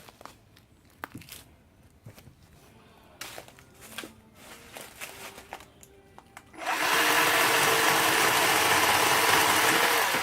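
Scattered light knocks and rustles, then about two-thirds in a battery-powered WORX 40-volt chainsaw's electric motor starts up abruptly and runs loud at a steady pitch until it stops at the end.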